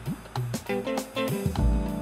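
Background music: a band track with guitar over a drum beat.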